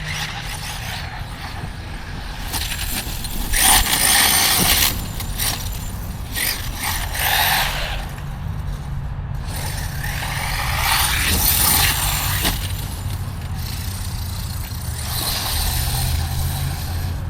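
Electric RC truck driving on loose ground, its tires spraying dirt and gravel in four hissing bursts as it accelerates and passes, over a steady low rumble.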